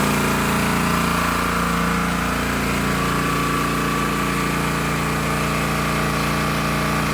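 Small petrol engine of a pressure washer running steadily.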